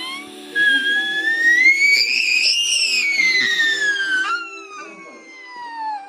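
A high, siren-like wail that rises steadily for about two seconds and then falls again. A second, lower tone follows and slides down.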